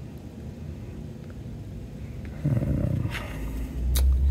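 Low rumbling handling noise with a single sharp click near the end, as the LED-studded panel is turned over in the hand.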